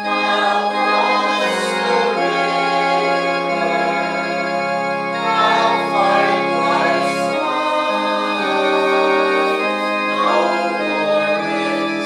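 Organ playing a slow hymn in long held chords, with a voice singing along in places.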